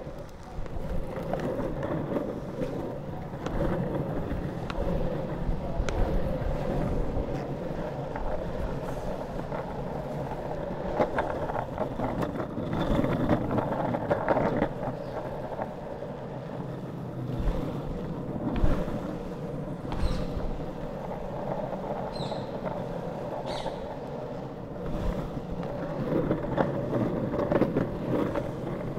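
Pantheon Trip drop-through longboard's wheels rolling over asphalt, a steady rough rumble heard close up from a camera on the board, with a few sharp knocks in the second half as it goes over bumps and cracks.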